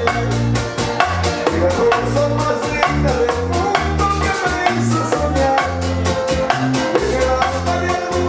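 Live Latin band music: a plucked guitar melody over a bass line and steady hand percussion with a quick, even beat.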